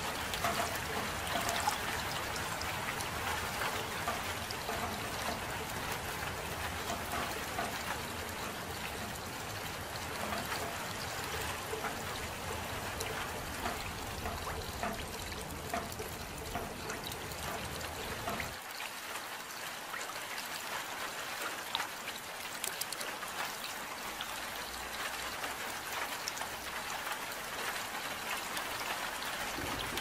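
Soft, steady rain with a patter of drops and trickling water. About two-thirds of the way through, the deeper rumble underneath drops away, leaving the lighter patter.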